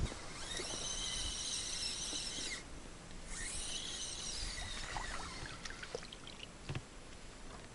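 Spinning reel being wound in, a soft whirring that breaks off about two and a half seconds in and starts again shortly after, over water lapping at the boat's hull.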